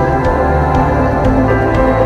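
Background music with sustained synth-like tones over a shifting bass line and a light, regular ticking beat.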